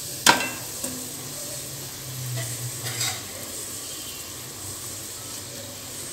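Hot oil sizzling steadily as breadcrumb-coated baby corn deep-fries in a kadai. A metal perforated skimmer clinks sharply against the pan about a quarter second in, and more softly about three seconds in.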